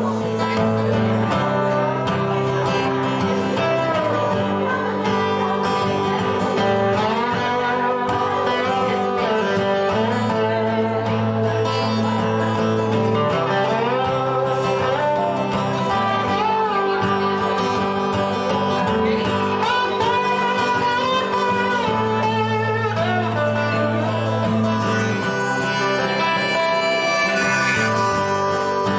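Two acoustic guitars playing an instrumental: one holds a steady low chord accompaniment while the other plays a lead of notes that glide up and down, in the manner of slide guitar.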